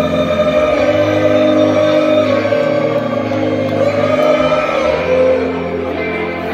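Live rock band playing a slow song through a concert PA, heard from within the audience, with long held notes and singing over the instruments; one held note glides down about five seconds in.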